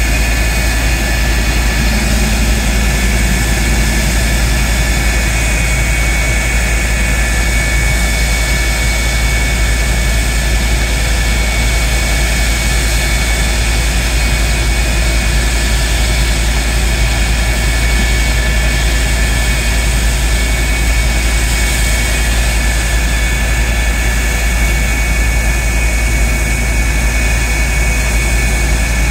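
Lockheed CF-104D Starfighter's J79 turbojet running on the ground at a steady setting: a loud, constant rushing jet noise with a high, unchanging whine over it.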